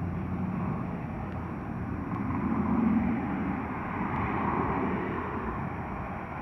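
Airliner engine noise at an airport: a steady, noisy drone that swells about halfway through and again shortly after.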